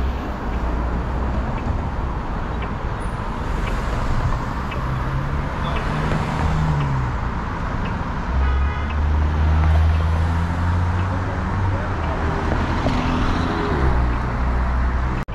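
City street traffic: cars driving past with engines running and tyre noise. The rumble swells and fades as vehicles go by, loudest around the middle.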